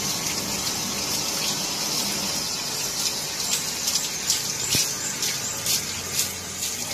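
Water running from a garden hose onto a wet dog and the concrete floor: a steady hiss with scattered splashes and drips, busier in the second half.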